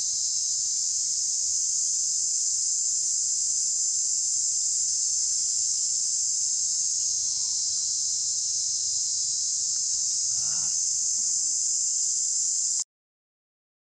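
Steady, high-pitched chorus of insects shrilling without a break, which cuts off suddenly near the end.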